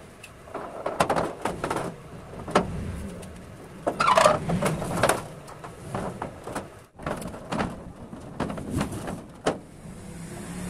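Irregular clanks and knocks of a steel folding-door frame being handled and set in place, with a sudden brief break in the sound about seven seconds in.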